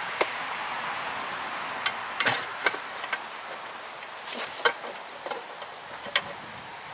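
Lower unit of a 1996 Mercury 115 hp two-stroke outboard being pulled down off the midsection, with scattered sharp clicks and knocks as the gearcase and its driveshaft slide free, over a steady background hiss.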